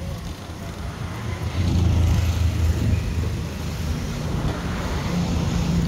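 A motor vehicle's engine running close by: a low hum that grows louder about a second and a half in and stays up.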